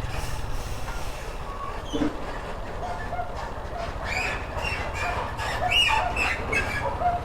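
Honda Start motorcycle's single-cylinder engine running with no air filter, a steady low pulsing beat while riding. From about four seconds in, a run of short high squeaks and chirps sounds over it.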